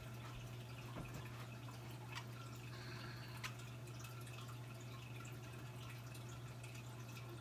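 A steady low hum with a few faint, separate ticks and clicks.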